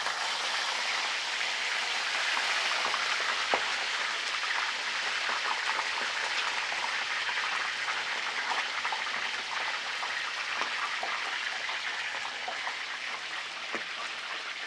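Two whole mojarras deep-frying in very hot oil in a copper cazo: a steady, dense sizzle and crackle with sharp pops scattered through it, easing slightly in the last few seconds.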